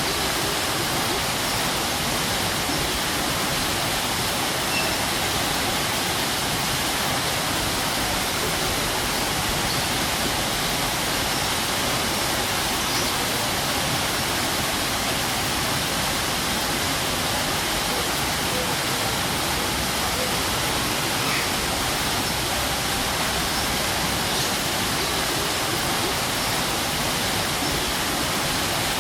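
A strong waterfall: a steady rush of falling water that does not change.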